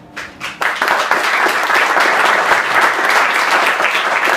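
Audience applauding. A few scattered claps in the first half-second swell into full, steady applause within about a second.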